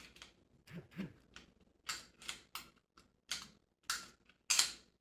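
Taurus G3 9mm pistol being handled after reassembly: a string of about ten sharp metal clicks and short scrapes as the slide and slide release are worked, the loudest near the end.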